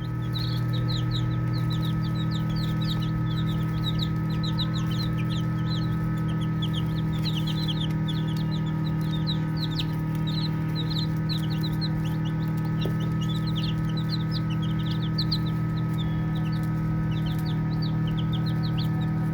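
A group of baby chicks peeping nonstop, many short high calls overlapping several times a second, over a steady low hum.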